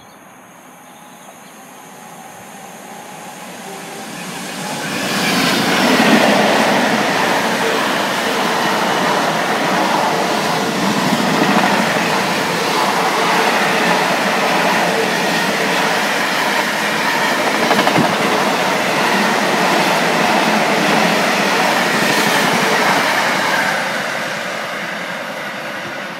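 Container freight train approaching and running through the station close by: the sound of the train and its wheels on the rails builds over the first five seconds, stays loud and steady while the long line of container wagons passes, then eases off near the end as the train draws away.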